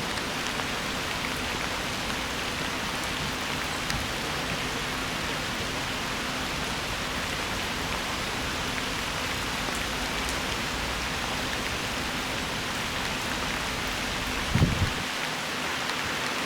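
Steady rain falling, an even hiss with no let-up. Near the end there is a single brief low thump.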